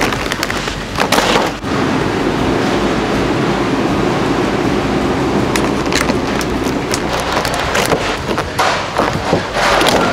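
Clear plastic bakery clamshell containers crackling and knocking as they are handled, with a metal shopping cart rattling as it rolls. Sharp clatters come about a second in and again near the end.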